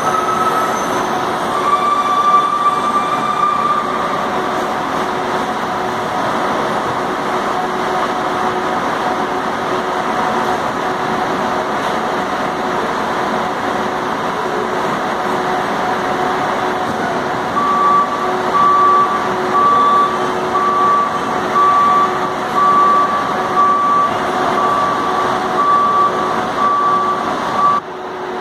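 Large diesel buses running at a bus station: a steady, loud engine hum. In the last ten seconds a reversing alarm beeps about once a second.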